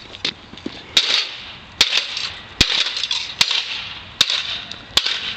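Baseball bat smashing an Xbox 360 console lying on asphalt: about six hard, sharp hits, one every second or less.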